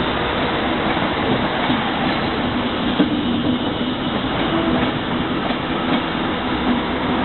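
Class 390 Pendolino electric multiple unit moving slowly past the platform: a steady rumble of wheels on rail with a low running hum, and a single click about three seconds in.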